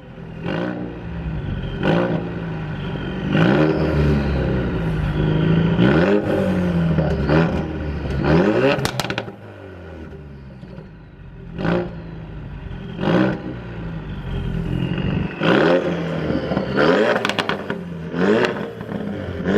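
Ford Focus RS Mk3's 2.3-litre turbocharged inline four-cylinder EcoBoost engine, breathing through a Borla aftermarket exhaust, revved again and again in short blips from idle. Several of the revs end in a rapid string of crackles and pops as the revs drop.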